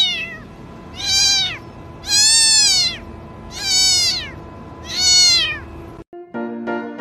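A domestic cat meowing repeatedly: four loud, high meows, each rising and then falling in pitch, about a second and a half apart.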